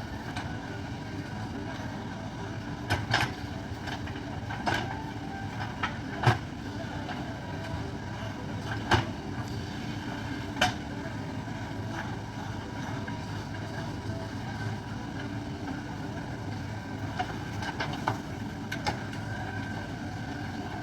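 A JCB earthmover's diesel engine runs steadily under work, with sharp knocks and clanks at irregular intervals, the loudest about six and nine seconds in and a quick cluster near the end.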